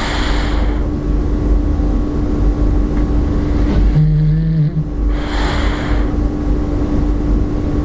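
Bulldog snoring in a slow, regular rhythm: a breathy hiss, then about four seconds in a short pitched, buzzing snore followed by another hiss. A steady low hum runs underneath.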